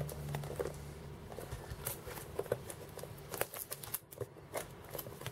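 Hands handling a shrink-wrapped cardboard box: the plastic film rustling and crinkling, with scattered light clicks and taps.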